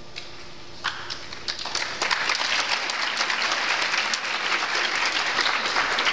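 Audience applauding: a few scattered claps about a second in, building into full, steady applause after about two seconds.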